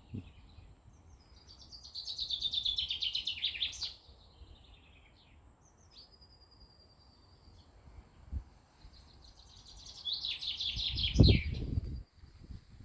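A songbird singing two phrases, each about two seconds of rapid high notes falling in pitch, with a short whistled note between them. A thump sounds during the second phrase.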